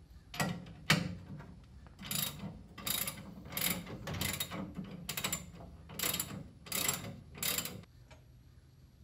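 Hand ratchet wrench turning a bolt, its pawl clicking in about ten separate strokes, one every three-quarters of a second or so, stopping near the end.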